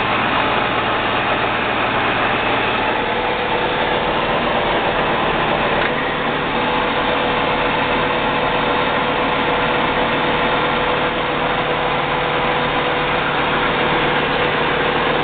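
A 14 x 40 gap-bed engine lathe running under power at medium speed, giving a steady mechanical hum and whir. A steady higher tone joins in about three seconds in.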